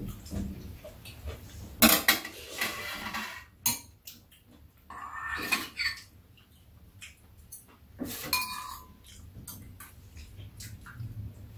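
Metal spoons and chopsticks clinking and scraping against ceramic bowls as two people eat, with a few sharp clinks spread through.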